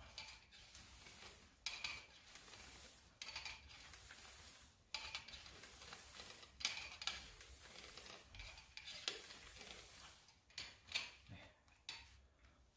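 Bicycle pump being worked in steady strokes, each stroke a rush of air, about one every second and a half. It is inflating a newly fitted inner tube in a minivelo's rear tyre, which is firming up.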